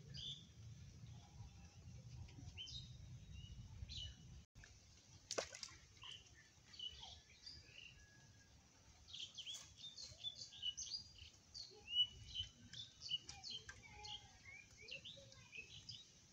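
Small birds chirping and calling, many short high calls that grow busiest in the second half.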